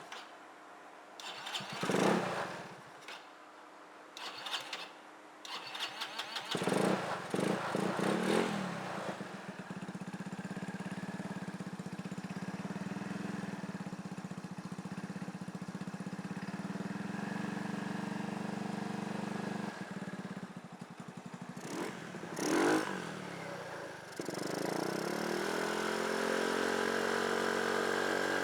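CPI GTR scooter engine, fed by a newly fitted Mikuni fuel pump, cranked in a few short bursts before it catches about six seconds in. It revs briefly, then idles steadily. Near the end it is revved up, with the pitch rising and held at a higher speed.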